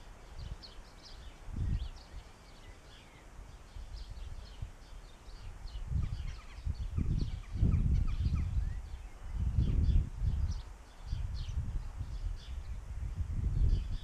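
Wind buffeting the microphone in irregular low gusts, loudest in the second half. Small garden birds chirp and twitter throughout, as many short, high calls.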